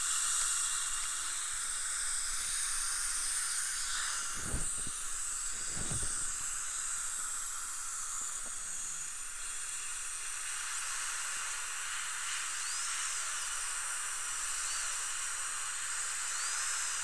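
Steady hiss of dental treatment equipment at work on a tooth, with two low knocks about a second and a half apart roughly four and a half seconds in.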